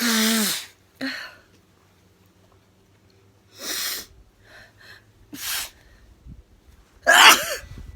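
A woman sneezing several times, with quiet gaps between sneezes and the loudest sneeze about seven seconds in. The sneezes are set off by sniffed pepper.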